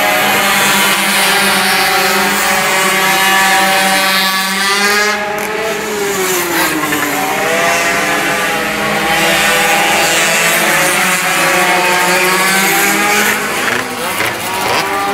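Several mini motorbike engines racing, their high engine notes rising and falling in pitch as they rev.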